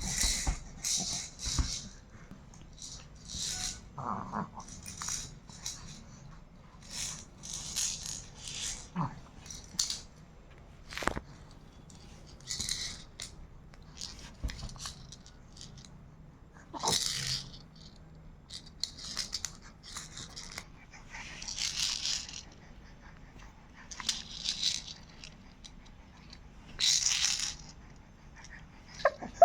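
Short rattling, shaking bursts at irregular intervals, each under a second and mostly high and hissy, with a few sharp clicks between.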